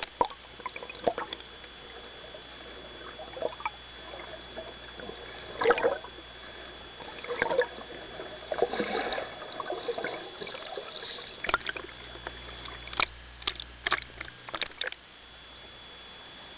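Sea water splashing and sloshing around a swimmer, in irregular short bursts over a steady hiss.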